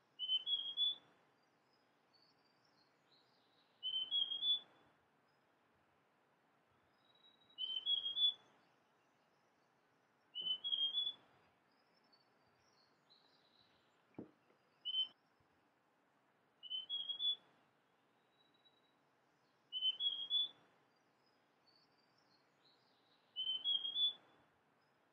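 Male large niltava (Niltava grandis) singing: a short phrase of about three clear notes rising in pitch, repeated about every three to four seconds.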